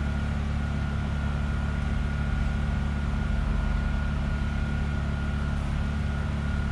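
Steady low machine hum, even and unchanging, with a faint steady high whine above it.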